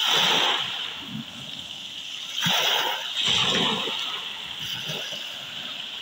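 Small sea waves breaking and washing up over a pebble beach: a steady rush with three louder surges, one at the start, one about two and a half seconds in and one just after three seconds, each dying away.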